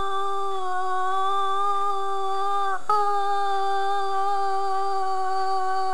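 A person's voice holding a long, steady wailing note, a mock coyote howl. About three seconds in it slides down briefly, then a second held note starts slightly higher.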